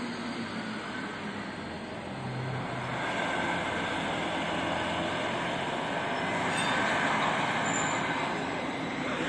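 Mercedes-Benz Citaro G articulated city bus driving past, growing louder a few seconds in and loudest past the middle.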